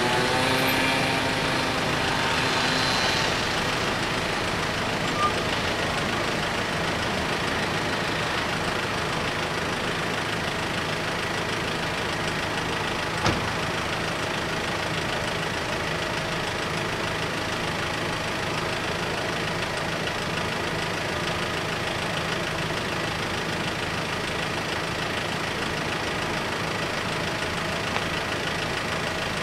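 Car engines idling steadily, with a pitched engine note dying away over the first few seconds and one sharp click about halfway through.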